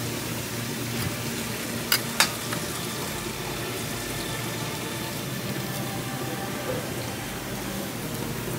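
Steady hissing background noise, with two sharp clicks close together about two seconds in.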